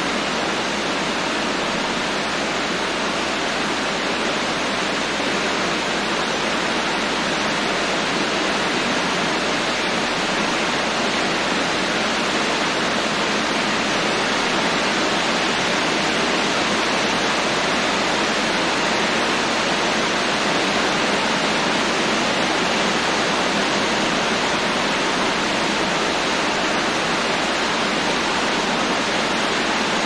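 Steady rain, a dense even hiss with no single drops standing out.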